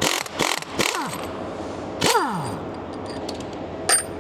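Metal parts clanking and clattering in a truck repair shop: several quick knocks in the first second, another about two seconds in followed by a tone sliding down in pitch, and a sharp clink near the end.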